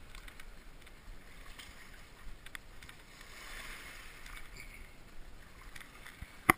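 Footsteps crunching on loose coral rubble, with small waves lapping at the shore. A single sharp knock near the end is the loudest sound.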